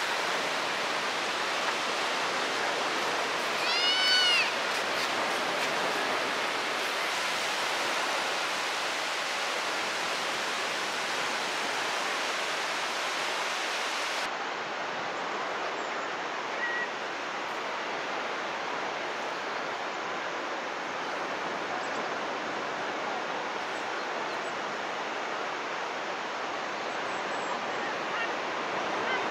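Steady wash of surf on a beach, with a single short squeak from a baby monkey about four seconds in.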